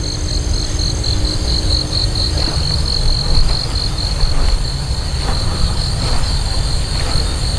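Insects chirping in a high, even, pulsing trill that goes on without a break, over a steady low rumble.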